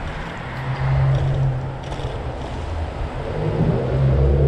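Wind and road noise from riding a bike along a city street, with cars driving past in the next lane. A low rumble swells about a second in and again near the end.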